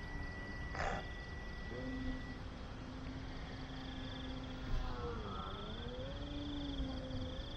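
Night insects trilling steadily, with the motor of an RC plane in flight droning faintly and shifting up and down in pitch as it flies. A brief click about a second in.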